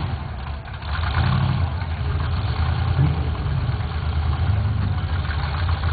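Engine idling with a steady low rumble, swelling briefly a few times.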